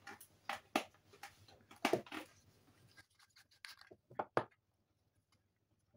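An LED torch being twisted apart by hand, its head unscrewed from the knurled battery tube: faint scraping and rubbing with light knocks, and two sharper clicks about four seconds in.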